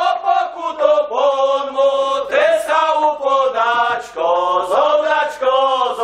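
Group of men singing a Góral highland carol together, unaccompanied, in long held notes that slide between pitches.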